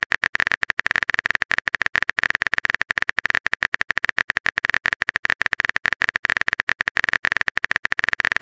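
Phone keyboard typing sound effect: a rapid, steady run of key clicks as a text message is typed out.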